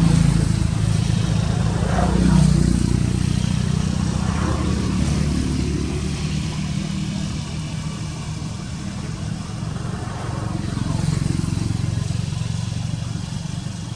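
Motor vehicle engines running, a steady low hum that swells as vehicles pass, loudest about two seconds in and again near the end.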